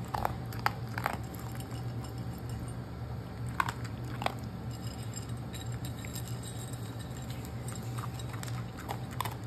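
Dog eating from a ceramic slow feeder bowl: chewing with short scattered clicks, over a steady low hum.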